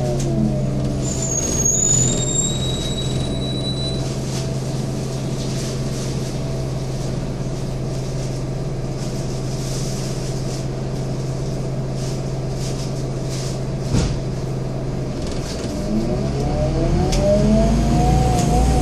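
Scania N230UD double-decker bus's diesel engine heard from the upper deck: it runs down and settles to a steady idle, with a brief high squeal in the first few seconds and a single knock later. Near the end the engine note rises as the bus pulls away.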